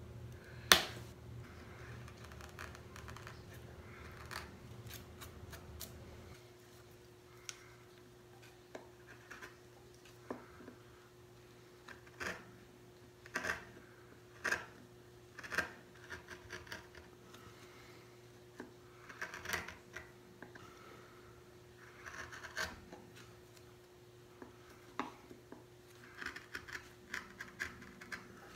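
Small hand carving chisel cutting and scraping into a plywood woodcut block: irregular short scraping cuts and light ticks as chips are pared out, with one sharp click about a second in.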